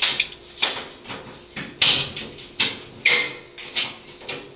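Irregular clatter of about ten sharp knocks and clicks, the loudest almost two seconds in. It comes from tools and the washer's metal and plastic parts being handled as the old lid switch is worked loose from the Whirlpool washer.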